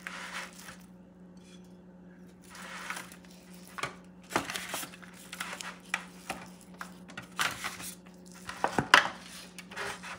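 Hands rubbing wet adobo seasoning into raw turkey skin in a thin disposable aluminum foil roasting pan: irregular rubbing and squishing with the foil pan crinkling and clicking, the sharpest clicks about four seconds in and near nine seconds. A faint steady hum underneath.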